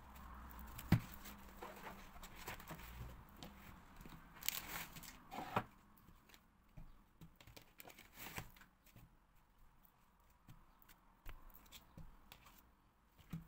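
Quiet tabletop handling of craft materials: silicone molds set down and a sheet being spread. A sharp knock about a second in, a crinkling rustle near the middle, then scattered light taps and clicks.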